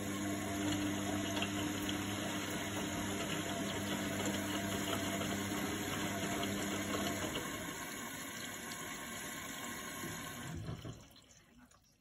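Indesit IWC71352 front-loading washing machine in its wash phase: the motor hums while the drum turns wet towels through water, which swishes and sloshes. About ten and a half seconds in, the drum stops and the sound fades to quiet.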